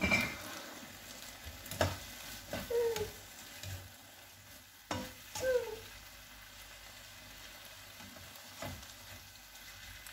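Mushrooms, chicken and vegetables sizzling in an oiled frying pan as a spatula stirs them, with sharp clacks of the spatula against the pan every second or two. Twice a short falling squeak sounds.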